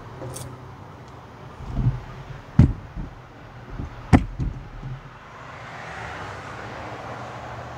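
Four sharp knocks and thumps from about two seconds in, as a person climbs the steps onto a caboose's end platform with a tripod used as a cane. They play over a steady background rumble.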